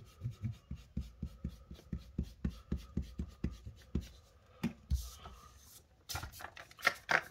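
Rubber eraser scrubbing over paper in quick back-and-forth strokes, about four a second, rubbing out pencil lines. A little past halfway the strokes stop, and near the end the sheet of paper rustles and scrapes as it is moved on the table.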